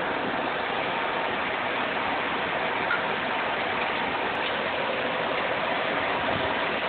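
Datacenter server fans running: a steady whoosh with a faint whine held through it.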